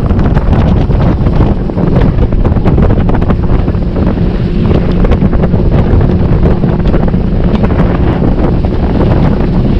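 Heavy wind buffeting the microphone of a moving boat, a loud steady rumble, with the boat's motor droning underneath.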